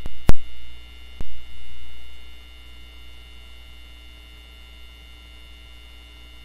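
Steady electrical mains hum with a few faint, steady high tones, broken by a sharp click about a third of a second in and a weaker click about a second later. The programme sound has dropped out while the picture goes blank, leaving only line hum.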